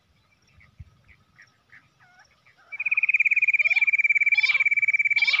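Bush quail calls played back through an electronic bird caller used as a lure. After a couple of seconds of faint chirps, a loud fast trill on one pitch starts suddenly and runs on, with sweeping whistled notes repeating a little more than once a second over it.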